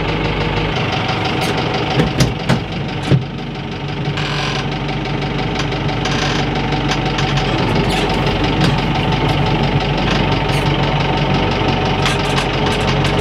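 Tractor engine running steadily at idle, heard from inside the cab, with four sharp clunks about two to three seconds in.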